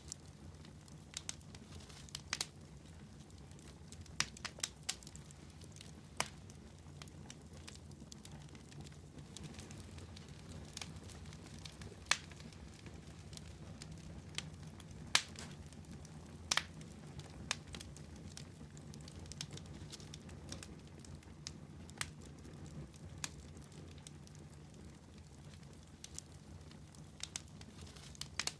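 Wood campfire burning: a steady low hiss of the flames with irregular sharp crackles and pops, a few louder snaps among them.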